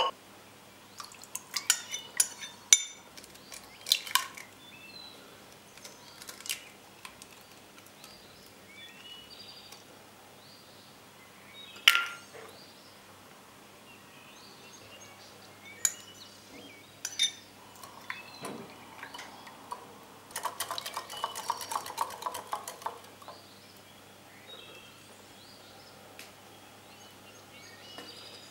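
Kitchen handling sounds of dough ingredients being put into a glass mixing bowl: scattered clinks and taps of utensils, cups and glass. There is one sharp knock about twelve seconds in, and a couple of seconds of rapid ticking of a utensil against the bowl about two-thirds of the way through.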